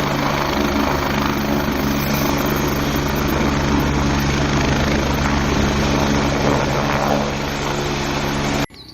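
Helicopter sound effect: a steady, fast rotor chop over a steady engine hum, cutting off suddenly near the end.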